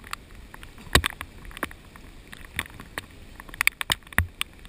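Scattered sharp taps and knocks, strongest about a second in and just after four seconds in, over a low wash of moving water.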